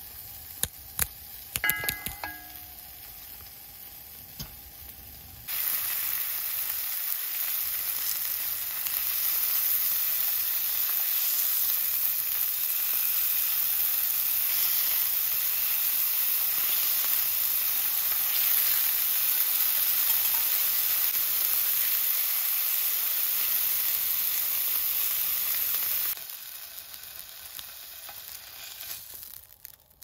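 Thin slices of wagyu beef sizzling steadily as they sear in a hot frying pan on a gas camping stove. The sizzle starts suddenly about five seconds in and cuts off a few seconds before the end. Before and after it come a few light clicks and clinks of chopsticks against the pan and plate.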